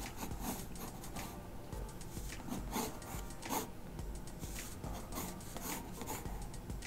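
Water-soluble graphite pencil sketching on textured cold-press watercolour paper, scratching in quick, irregular strokes.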